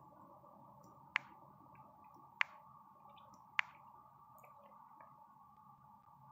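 Three sharp single clicks about a second apart, one for each move played on a computer chess board, over a faint steady hum.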